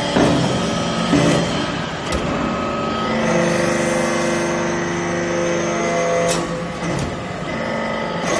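Hydraulic metal-chip briquetting press at work: a few sharp clicks, then from about three seconds in a steady hum of the hydraulic system under load for about three seconds as the ram compacts metal chips in the mould. The hum ends with a sharp click, and another click follows.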